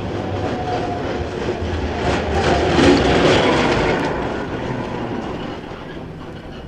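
Electric tram passing by, building to its loudest about three seconds in with a quick run of wheel clacks over the rails, then fading away.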